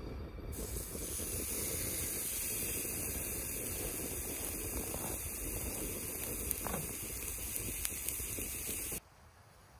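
Raw steak sizzling on a hot cast iron grill-grate pan: a steady hiss starts about half a second in as the meat goes down, with a low rumble underneath and a few sharp crackles. The sound cuts off abruptly about nine seconds in.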